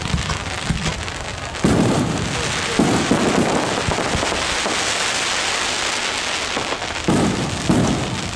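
Aerial fireworks shells bursting overhead, with sharp booms a couple of seconds in, about three seconds in and twice near the end. In between comes several seconds of dense crackling from a glittering white burst.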